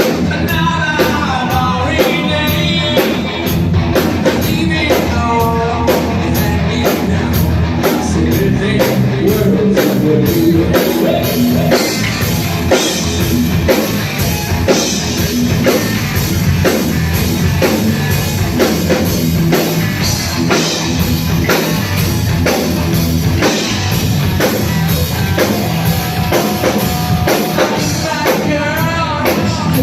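Live rock band playing a song at a sound check, with a singer over a drum kit keeping a steady beat.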